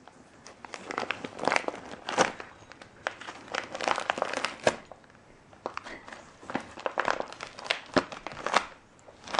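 Christmas wrapping paper crinkling as a Siberian husky noses and paws at a wrapped present, in irregular clusters of crackles with a short lull about five seconds in.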